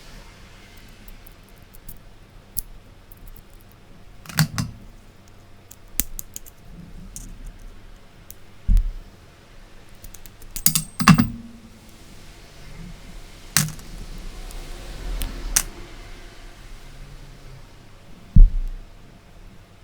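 Parts of a MIWA PS dimple-key lock cylinder being taken apart by hand: scattered small metallic clicks and taps, with a couple of dull knocks on the work surface, the loudest near the end.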